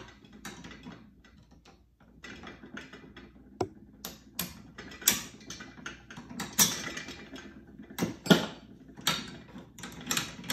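Irregular metal clicks and clinks of a Hurst shifter's steel parts as the carriage-bolt pivot pin is lined up and worked into the shifter body by hand. The louder clicks come in the second half.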